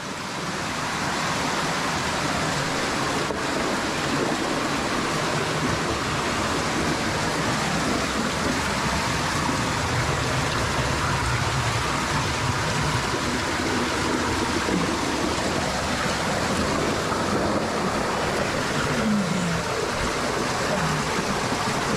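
Rushing water of an underground cave stream, a steady noise that holds without change.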